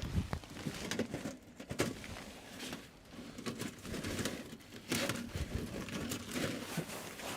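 Rustling and crinkling of tent fabric with scattered light clicks and knocks as stovepipe is handled and fed through the tent's stove jack.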